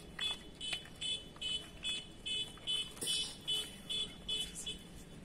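Electronic beeper of a battery toy sounding an even run of short high beeps, about two a second, that stops near the end, with a few light clicks of plastic toy blocks being handled.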